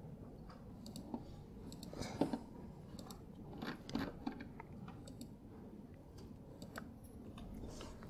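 Faint, scattered clicks and small rustles of a computer mouse and keyboard being worked, over a low room hum.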